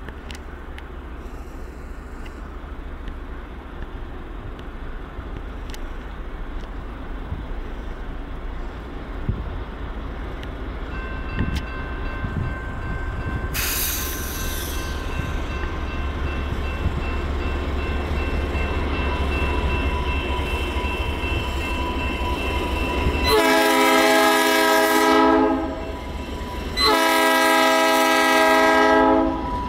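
GE B23-7 diesel locomotive approaching with its 12-cylinder engine running, the rumble slowly growing louder, with a short hiss about halfway through. Near the end its air horn sounds two long blasts, each about two and a half seconds, a pause between them.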